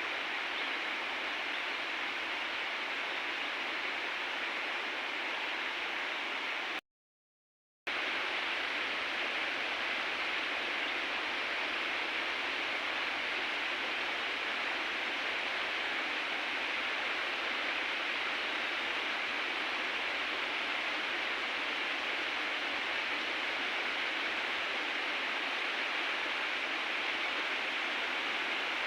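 Steady rush of flowing river water, an even hiss with no change. It drops to dead silence for about a second about seven seconds in, then resumes.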